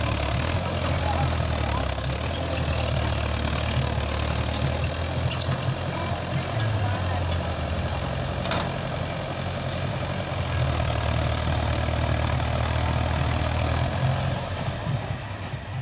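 Mahindra 575 DI XP Plus tractor's four-cylinder diesel engine running steadily as it pulls a trolley loaded with soil, fading away near the end.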